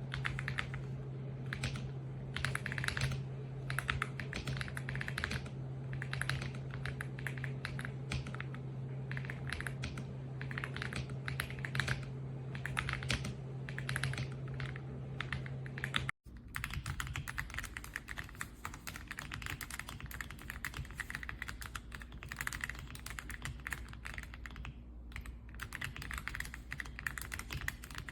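Fast typing on the EPOMAKER x Aula F99 mechanical keyboard with Graywood V3 switches: a dense, irregular run of keystroke clicks. A steady low hum sits under the first part, and the sound breaks off for a split second about sixteen seconds in. The typing then carries on without the hum.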